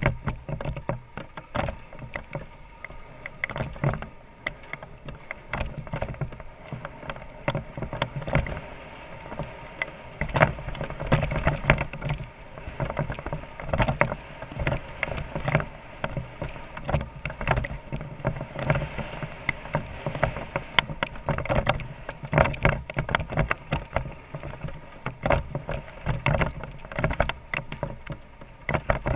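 BMW F650GS Dakar's single-cylinder engine running at low speed over a rough dirt track, under a steady stream of irregular knocks and rattles as the bike jolts over the ruts.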